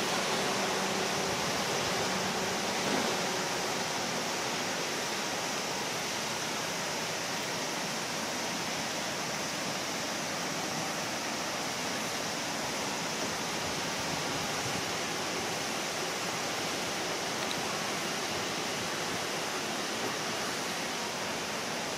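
Steady hiss of falling rain, even and unbroken.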